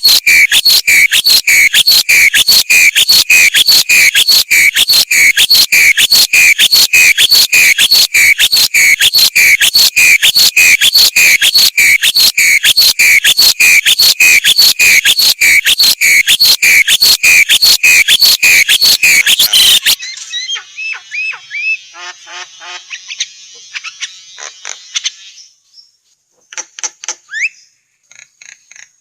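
A loud, fast, evenly repeated croaking call, several a second, that cuts off abruptly about two-thirds through. Softer, varied bird chirps and whistles follow in short phrases with brief gaps, in a starling training and therapy recording for cage birds.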